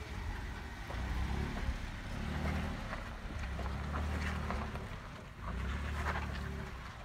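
Two-door Jeep Wrangler's engine running at low revs as it crawls up a rock ledge, easing off briefly a little past halfway and then pulling again, with scattered light crunches over the top.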